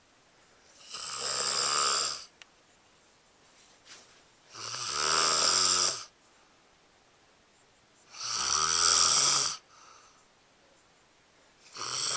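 A sleeping person snoring loudly: three long, buzzing snores about three and a half seconds apart, with a fourth starting near the end.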